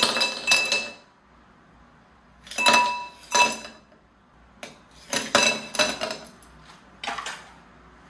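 Dishes and cutlery clinking and clattering in four or five short bursts, some strikes leaving a brief ringing tone.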